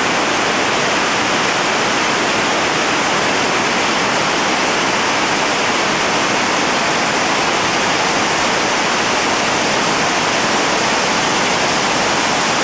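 Whitewater rapid rushing steadily over rock ledges, a loud, even roar of churning water.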